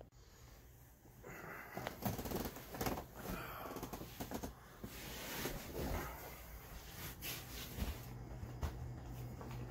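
Handling noise from a camera being moved about: irregular rustling and brushing, with many light clicks and knocks.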